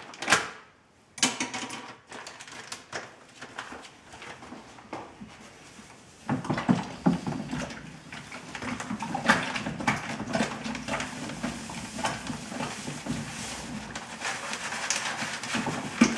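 Plastic bag of brew sugar crinkling as it is opened, with a few sharp crackles at first. From about six seconds in, a denser, louder rustle as the sugar is poured from the bag into a plastic fermenter of wort while it is stirred with a spoon.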